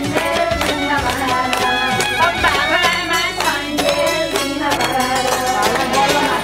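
Music with a wavering melodic line over regular percussion strikes.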